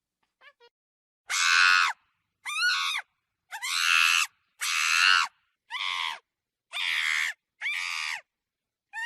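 Monkey screeching in a series of about seven harsh calls, roughly one a second, each under a second long and rising and falling in pitch, after a couple of faint chirps.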